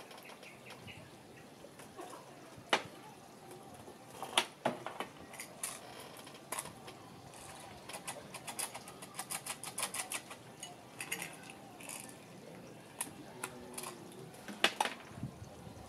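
Faint handling noises of a small item being peeled or unwrapped by hand: soft clicks and crinkles, with a quick run of small clicks in the middle and a few sharper knocks, the loudest near the end.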